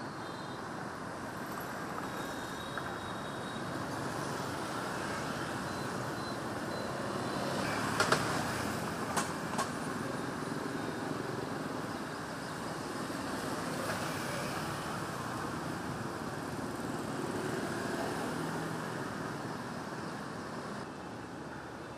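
Steady city street traffic noise, with three short sharp knocks about eight to ten seconds in.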